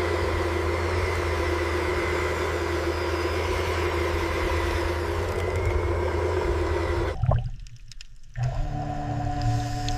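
Boat engine droning steadily, with several held tones over a wash of water noise. It cuts out about seven seconds in and comes back a second later at a different pitch.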